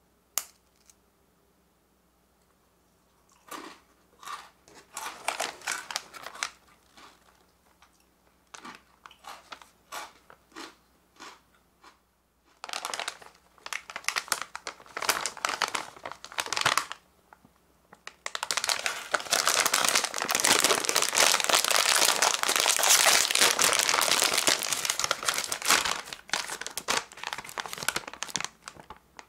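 A sharp click, then a foil-lined potato chip bag crinkling as it is handled in short bursts. About eighteen seconds in, a long stretch of loud, continuous crinkling follows as the bag is torn and pulled open.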